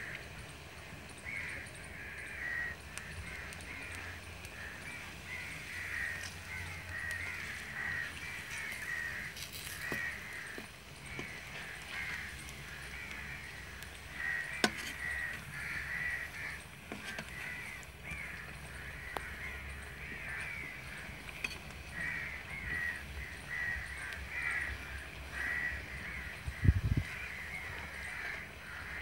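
Harsh bird calls repeating over and over, with a faint sizzle of pakoras deep-frying in oil in an iron karahi beneath them. There are a few clinks from the slotted spoon, and a short low thump comes near the end.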